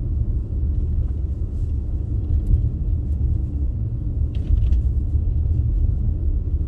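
Steady low rumble of a car driving on a snow-packed road, heard from inside the cabin: tyre and road noise with the engine underneath.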